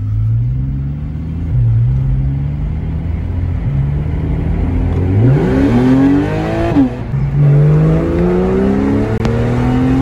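Porsche 911 Carrera 4S's 3.8-litre flat-six accelerating hard, heard from inside the cabin. The revs sit low at first, rise steeply about five seconds in, drop at a gear change around seven seconds, then climb again.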